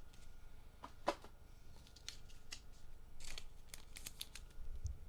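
Topps Chrome baseball cards being handled and slid one by one through the hands: scattered short snaps and scrapes, the sharpest about a second in and several close together later, with a soft low thump near the end.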